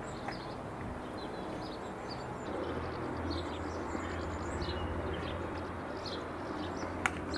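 Birds chirping over a steady low rumble outdoors, with a single sharp knock near the end: a cricket bat striking the ball.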